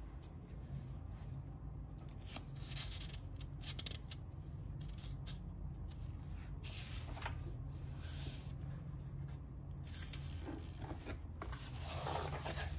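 Paper pages of a spiral-bound sketchbook being handled and turned: soft scattered rustles and small clicks, with a louder rustle near the end as a page is flipped over.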